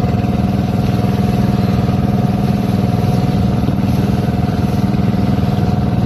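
Outrigger fishing boat's engine running steadily under way, a loud, even drone that holds one pitch.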